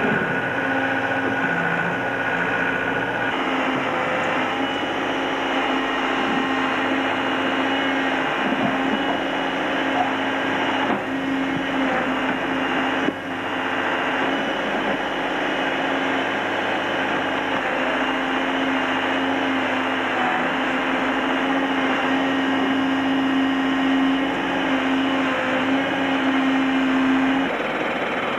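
Backhoe engine running steadily as the machine digs, with a constant low hum and a whining motor tone.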